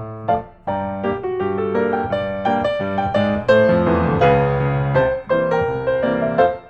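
Background piano music, a lively run of notes that breaks off briefly just after the start and fades down near the end.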